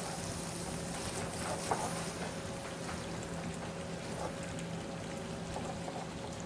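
Pancetta, onions and butter sizzling steadily in a hot sauté pan as sherry wine is poured in, with a steady low hum underneath.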